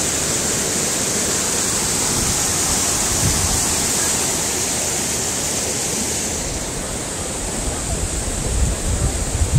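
Stream water rushing steadily, a dense even hiss. About two-thirds through, the hiss turns duller and wind starts buffeting the microphone with irregular low rumbles.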